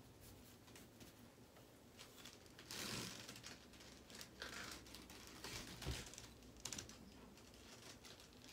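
Faint scratchy rasps of a comb backcombing long hair, in short irregular strokes; the loudest comes about three seconds in.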